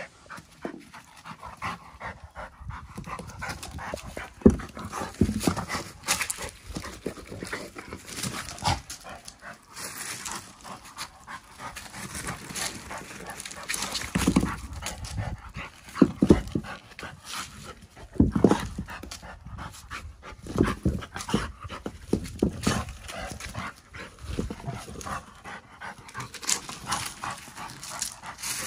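Rottweiler panting as it mouths and shoves a bowling ball over gravel and stones, with irregular knocks and scrapes of the ball against the rocks and a few heavier thuds.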